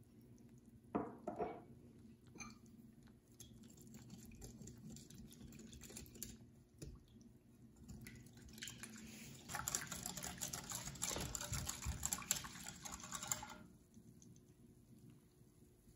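A wire whisk beating milk, egg yolks, cornstarch and sugar in a glass bowl: liquid sloshing, with the whisk wires ticking rapidly against the glass. It gets faster and louder about halfway through, then stops sharply near the end. A couple of knocks come about a second in.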